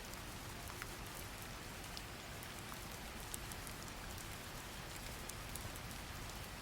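Steady rain ambience: an even hiss of rainfall with scattered light droplet ticks.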